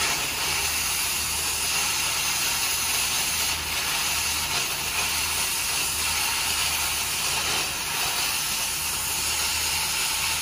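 Large pot of whitebait at a rolling boil: a steady hiss of steam and churning water, with a low rumble underneath.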